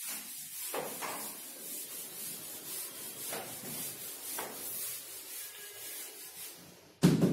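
Chalkboard duster being wiped back and forth across a chalkboard, a steady scrubbing hiss in repeated strokes. A sudden loud thump comes near the end.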